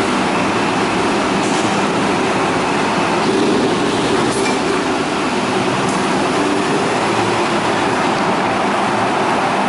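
Steady, loud machinery drone of a car ferry's enclosed vehicle deck: a constant low hum under an even hiss, from the ship's engines and ventilation.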